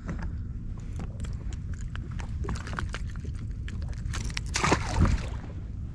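Spinning fishing reel being cranked against a fish, with irregular clicks and handling noise over a steady low rumble; a brief louder rustle about four and a half seconds in.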